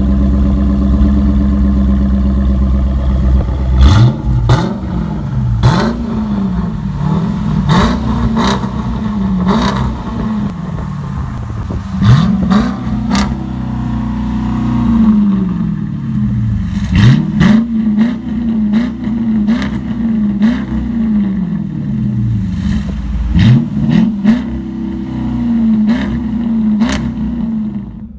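2018 Jeep Grand Cherokee's engine through a Kinney's Tunnel Ram performance exhaust, idling steadily, then blipped about four seconds in and repeatedly after. Each rev rises sharply and falls back, with one longer held rev about halfway through and sharp crackles on many of the revs.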